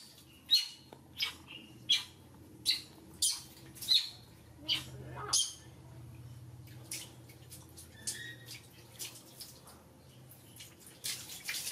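Baby macaque squeaking in short, sharp high-pitched calls, about one every two-thirds of a second at first, then fainter and more scattered, over a low steady hum.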